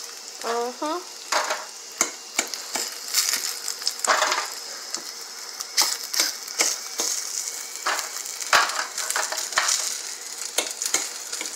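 Pieces of sausage sizzling in hot oil in a stainless steel frying pan, a steady high hiss. Repeated sharp clicks and taps of a utensil against the pan as the pieces are lifted out.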